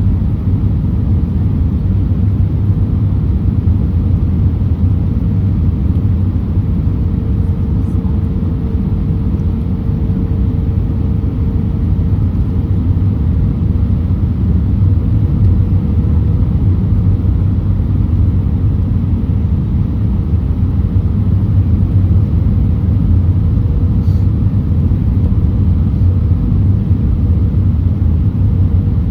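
Steady low rumble of an Airbus A319 heard from inside the passenger cabin, with a faint steady engine tone over it.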